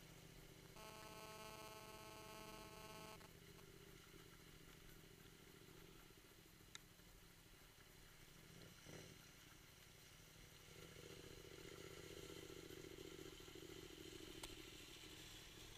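Faint motorcycle engine running while riding on a dirt road, with a steady engine tone for a couple of seconds near the start and a stronger, steady engine sound from about eleven seconds in. Two short sharp clicks.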